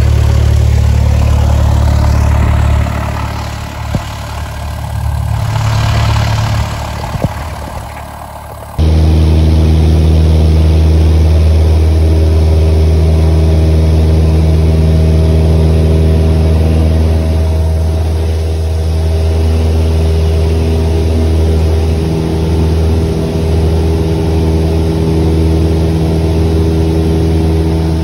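Single-engine Cessna's piston engine and propeller, heard inside the cabin. The engine runs at low power for the first few seconds, then about nine seconds in it jumps suddenly to full throttle for the takeoff roll and climb. At full power it runs loud and steady with several even engine tones.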